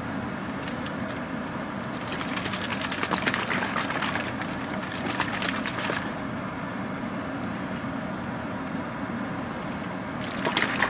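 Dense crackling and clicking of handled plastic in two spells, a long one from about one and a half to six seconds in and a short one near the end, over a steady low hum in a car's cabin.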